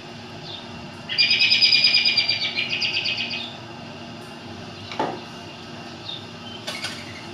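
Recorded songbird song: a loud, rapid trill starts about a second in and lasts about two seconds, with softer short high calls around it and a sharp chirp near the end.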